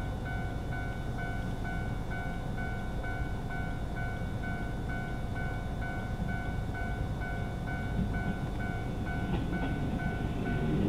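Level-crossing warning bell ringing in a steady, evenly repeating pattern. Near the end, the rumble of an approaching diesel railcar grows louder beneath it.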